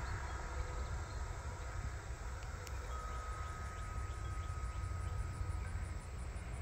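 Outdoor ambience: a steady insect hiss over a low rumble of wind on the microphone, with a faint held ringing tone for a few seconds in the middle.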